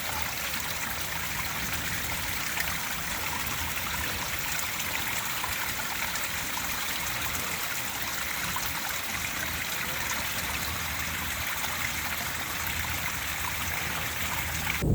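Stream water running steadily, an even rushing hiss.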